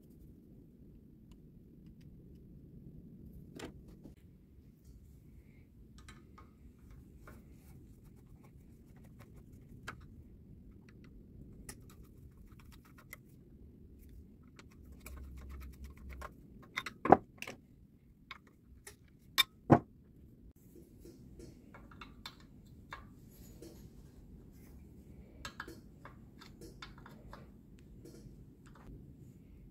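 Scattered light clicks and taps of a screwdriver and small metal parts as a small-engine carburetor is assembled and fitted, over low steady background noise. Two pairs of sharper knocks come a little past halfway.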